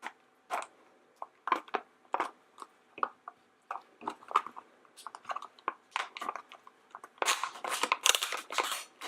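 A plastic Num Noms blind container being opened by hand: scattered sharp plastic clicks and snaps, then denser, louder crinkling of plastic and paper packaging starting a little after seven seconds in.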